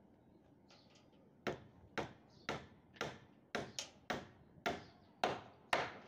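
A steady run of about ten sharp knocks, roughly two a second, starting about a second and a half in, on a stair's rebar and timber formwork under construction.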